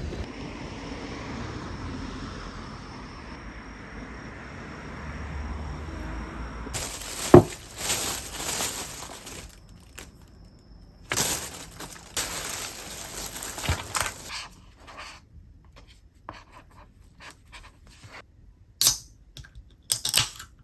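Plastic takeout packaging being handled: crinkling and rustling in several loud bursts, with a few sharp clicks and knocks, after several seconds of steady background noise.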